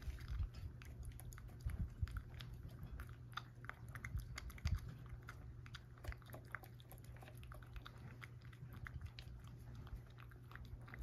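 A cat chewing dry kibble mixed with a lickable tuna treat from a bowl: irregular crunching and small clicks, louder in the first half.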